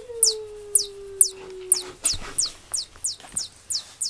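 Electronic mouse squeaks from a Chu~! Touch wand cat toy, set off by its vibration as the mouse head is dragged along: quick, high, falling chirps repeating about two or three times a second. Over them, in the first two seconds, one long, slightly falling cat meow.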